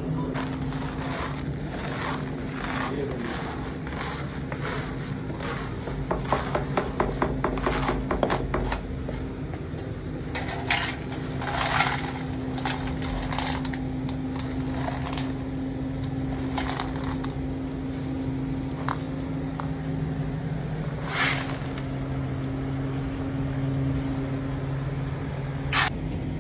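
Hard, dry batashe (sugar drops) clicking, clattering and scraping as they are gathered by hand on a cloth and into a bowl, with a quick run of small clicks partway through. A steady low hum runs underneath.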